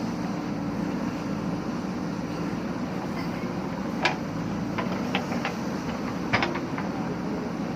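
Diesel engine of a JCB backhoe loader running steadily as it works. A few sharp knocks, the loudest about four seconds in and again about six seconds in.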